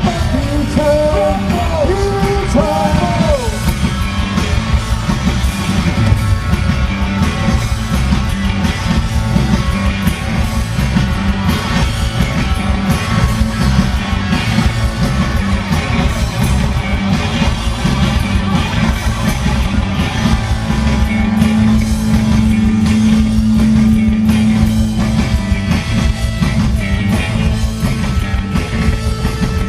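Live rock band playing an instrumental passage at full volume, with electric guitar, bass guitar and drum kit; a sustained low note rings under the band for a few seconds past the middle.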